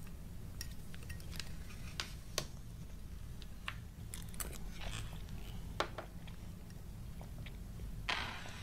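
Lipstick being drawn across lips: small sticky clicks and crackles at irregular intervals over a low steady hum, with a short hiss near the end.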